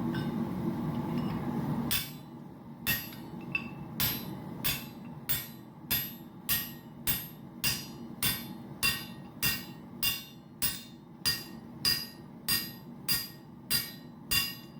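Hand hammer striking a steel drift to open a punched hole in hot titanium: a steady run of ringing metallic blows, about three every two seconds. A steady rushing noise fills the first two seconds, then cuts off as the hammering starts.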